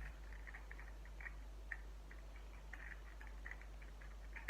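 Faint, irregular light clicks and crackles of small plastic blind-bag packets and toy figures being handled.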